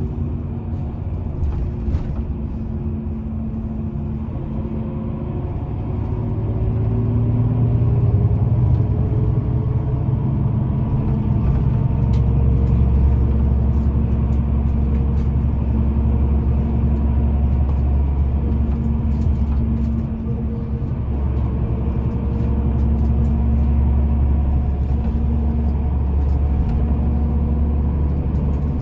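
Engine rumble from a motor vehicle, steady and low. It has a hum whose pitch drifts slowly, and it gets louder about six seconds in.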